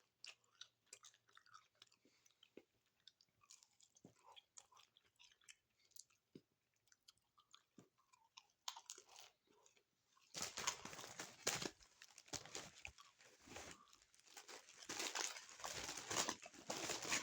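A person biting into and chewing a Doritos Locos taco, its crisp nacho-cheese corn shell crunching. It is faint at first, then loud crunching comes in bursts from about ten seconds in.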